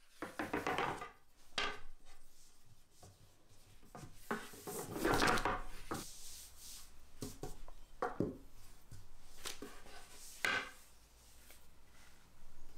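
Long thin wooden rolling pin (oklava) rolling and rubbing over a thin sheet of hand-rolled phyllo dough on a floured table, with a hand smoothing the dough: quiet, irregular swishing rubs, a few of them louder.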